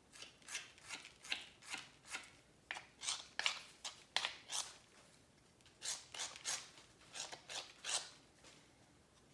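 A hand tool scraping a clay slab in short, quick, scratchy strokes, about two to three a second, in two runs with a pause about halfway.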